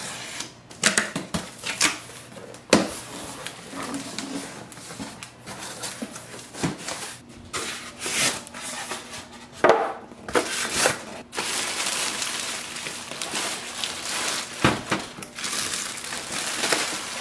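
Unboxing handling noise: a box cutter slicing the packing tape on a cardboard carton, cardboard flaps and foam packing inserts being pulled out with scrapes and knocks, and a plastic bag rustling as it is drawn off the printer near the end.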